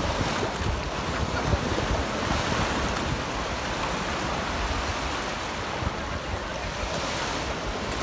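Sea surf washing steadily onto a sandy beach, with wind buffeting the microphone in a low, gusty rumble.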